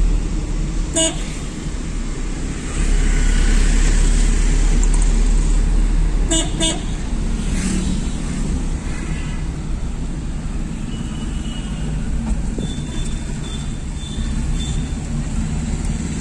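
Traffic noise with a steady low rumble of a moving vehicle, cut by short vehicle horn toots: one about a second in and two quick ones about six seconds in.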